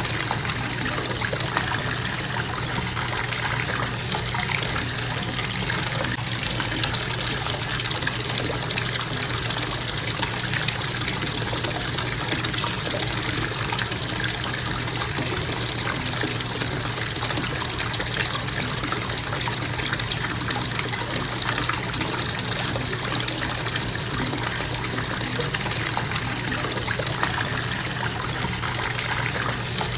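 Bathtub faucet running steadily, water pouring and splashing into the tub as it fills.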